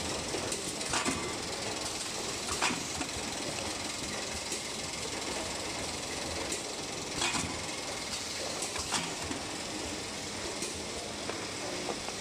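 Rotary cup filling and film-sealing machine running: steady mechanical noise with a hiss, and several sharp clacks at irregular intervals as the machine cycles.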